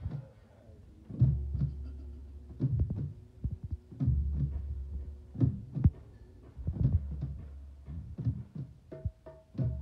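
Deep thumps from a large nyabinghi bass drum, mostly in pairs about every second and a half, each leaving a low ring, with lighter hand-drum taps in between. A steady tone joins near the end.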